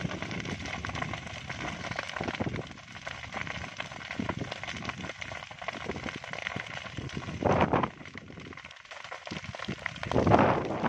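Fire burning through tall dry vegetation, crackling and popping densely, with two louder bursts, about seven and a half seconds in and near the end.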